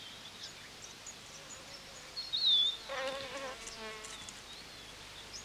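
Flies buzzing around a resting cheetah, with a short wavering buzz about three seconds in. A short high chirp comes just before it.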